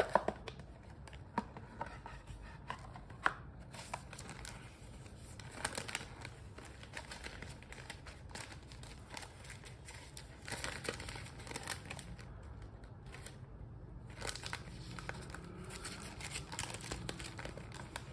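Tissue paper rustling and crinkling as it is unfolded in a gift box, in several stretches. In the first few seconds there are a few sharp taps and clicks as the cardboard box is handled.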